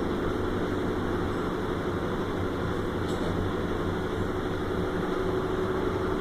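Steady mechanical hum of industrial machinery with a constant low tone; no weld shots or impacts are heard.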